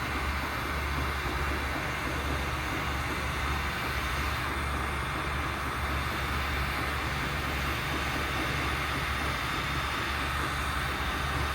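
Steady low mechanical hum under an even hiss, unchanging throughout, with no distinct knocks or clicks.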